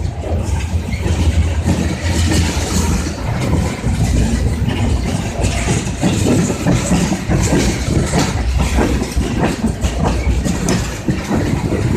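Train going past: a heavy, steady low rumble with a run of irregular clanks and knocks.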